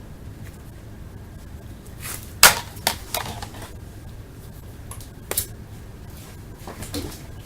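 Sharp crinkles and taps from a foil baseball card pack and its cards being opened and handled, a few separate sounds with the loudest about two and a half seconds in.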